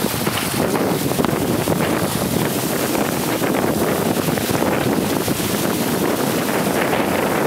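Wind buffeting the microphone of a trimaran under sail through a choppy sea, over the rush of water along the hulls. The noise is steady throughout.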